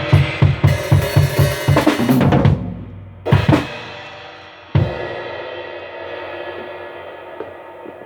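Acoustic drum kit played: a run of quick, even hits about four a second, then two loud hits with cymbals, the last ringing out slowly.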